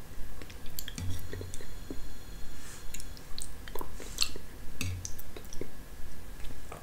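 Close-up eating sounds of a person tasting soft yogurt from a spoon: scattered wet mouth clicks and lip smacks, with two soft low bumps, and the spoon scooping from a plate near the end.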